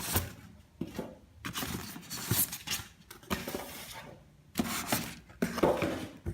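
Packaging being handled while a printer's accessories are unpacked from the box: irregular bursts of plastic rustling with light knocks and clinks.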